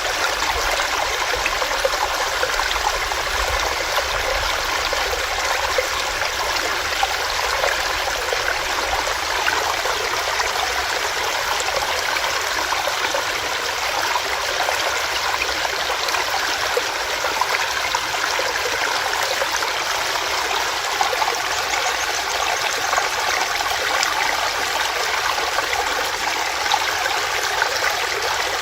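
Small rocky stream running over rocks, a steady babble of rushing water with fine splashing and trickling.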